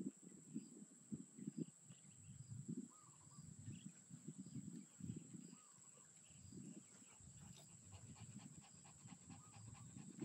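A puppy panting faintly in quick, uneven breaths.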